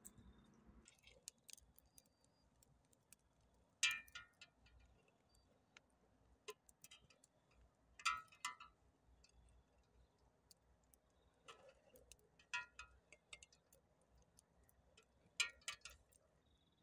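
Small wood-and-twig fire crackling with sparse faint pops, and sharp ringing clinks of a metal cooking pot and lid being handled, in pairs about every four seconds.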